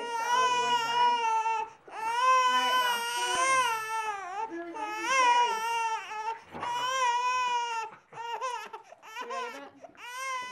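A baby crying in long, high-pitched wails a second or two each, with short breaths between. After about eight seconds the cries turn shorter and choppier.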